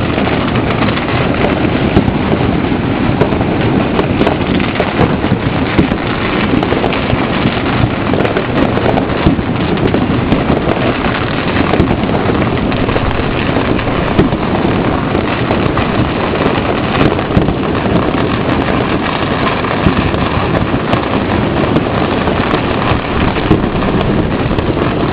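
Massed firecrackers and fireworks going off all over a city at once, blending into a steady, unbroken crackle with many sharp pops standing out.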